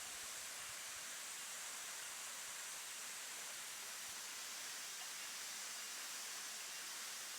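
Steady rushing hiss of a waterfall, even and unbroken.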